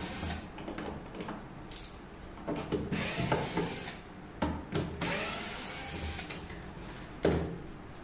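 Cordless drill-driver whirring in short bursts as it backs out the screws holding a top-load washing machine's drain motor and drain assembly. A sharp knock comes near the end.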